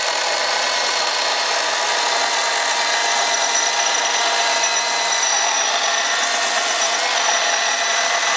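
A Stihl 026 two-stroke gas chainsaw and a Milwaukee cordless battery chainsaw cutting through wood side by side, both running steadily under load.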